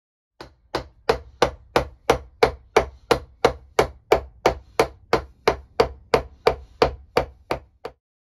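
A hand-carved wooden mallet striking a wood chisel, chopping a recess into a block of wood: a steady, even run of sharp knocks at about three blows a second.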